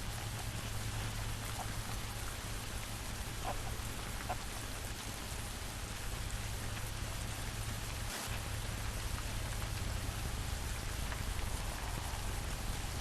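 Steady rain falling, with a few faint individual drop ticks standing out.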